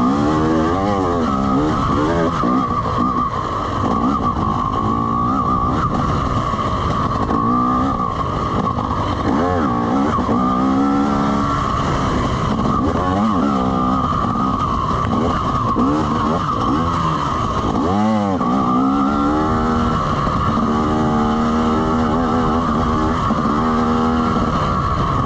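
2020 TM EN300 dirt bike engine being ridden hard along a trail, revving up and dropping back over and over as the throttle is opened and closed.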